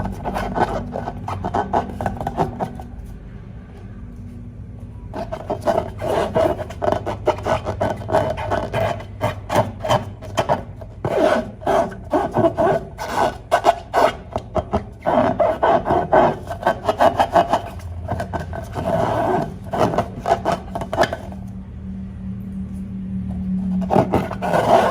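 Inflated rubber balloons being rubbed and squeezed by hand: a fast, irregular run of rasping squeaks, easing off about three seconds in and again near the end.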